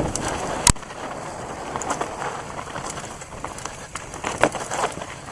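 Mountain bike rolling fast down a rocky, loose trail: tyres crunching over stones, with the chain and frame rattling. A sharp clack under a second in is the loudest sound, with another knock a little after four seconds in.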